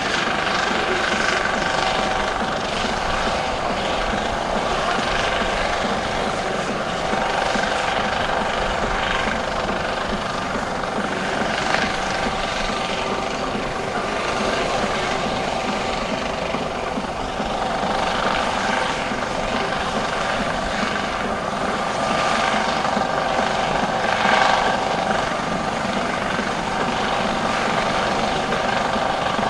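Eurocopter MH-65D Dolphin helicopter hovering, a steady whine from its turbines and fenestron tail rotor over the wash of the main rotor.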